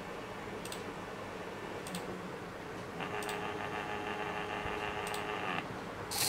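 Small 28BYJ-48 geared stepper motors of a pen plotter whirring as the pen carriage draws a calibration square. A louder, steady buzz runs from about three seconds in to past five seconds as one axis makes a long move, with a few faint ticks along the way.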